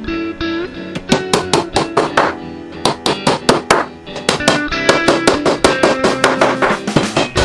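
Background music: a guitar track with quick, rhythmic strumming over held notes.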